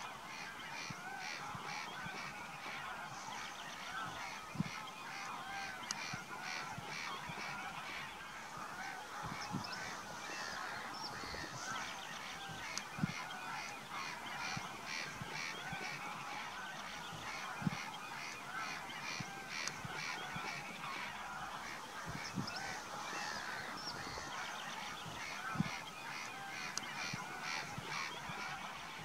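A large flock of geese honking in a dense, continuous chorus over a wetland, with a fast pulsing call higher up. A short low thump stands out every few seconds.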